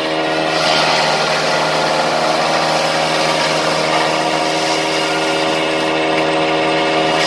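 Freshly overhauled JF 60 Maxxium forage chopper running steadily off a Massey Ferguson tractor's power take-off, chopping green stalks as they are fed in: a steady engine and rotor hum under a continuous rushing noise of cut forage.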